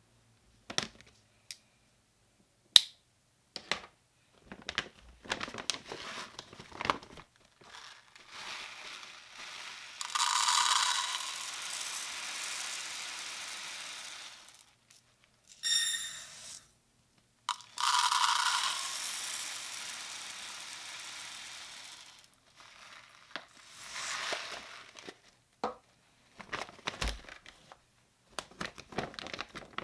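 Uncooked white rice poured from a measuring cup into a rice cooker's metal inner pot, twice: a hiss of falling grains that starts strong and tapers off over about four seconds each time. Around the pours, the plastic rice bag rustles and the cup and pot clink and knock.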